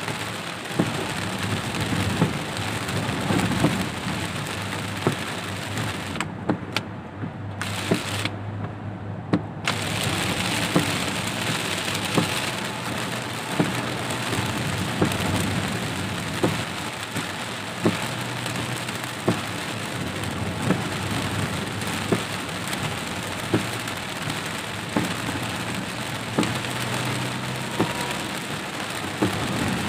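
Heavy rain hitting a car's roof and windshield, heard from inside the cabin, over a low steady hum. Sharp regular knocks come about every second and a quarter, in time with the windshield wipers sweeping.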